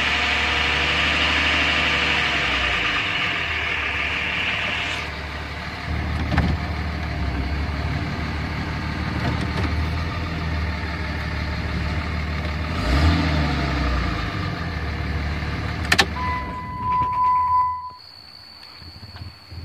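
2007 Dodge Ram 2500's 5.9-litre Cummins inline-six turbo diesel idling steadily, heard from inside the cab. About sixteen seconds in comes a sharp click and a steady electronic tone lasting a second or two, then the engine sound drops away to a much quieter background.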